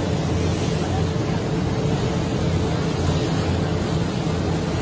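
Boat engine running with a steady low drone, under a constant rush of wind and water noise.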